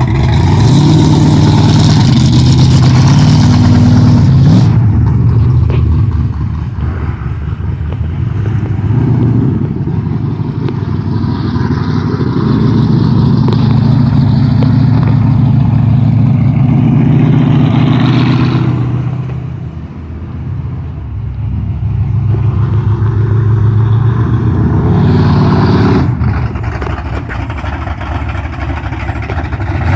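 A vehicle's engine pulling under load, its pitch climbing in steps in the first few seconds as it goes up through the gears. It eases off around two-thirds through, pulls up again, then drops back to a lower note near the end.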